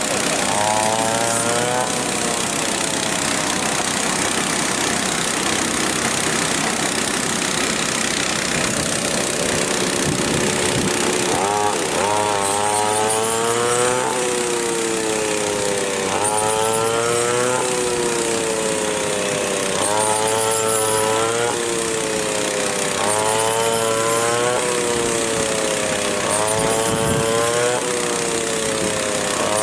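A small engine running steadily over a rushing mechanical noise. From about twelve seconds in, its pitch rises and falls again roughly every four seconds, as if it is loaded and recovering.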